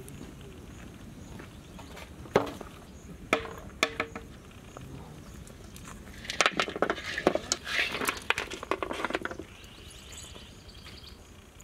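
Boiled mutton bone pieces knocking and clattering onto a large metal tray: a few single knocks, then a denser run of clatter about six seconds in.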